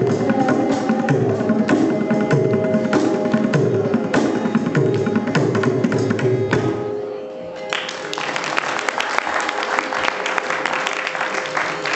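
Closing bars of a Carnatic song in raga Bahudari: mridangam strokes under violin and voice. The music ends about seven seconds in and is followed by audience applause.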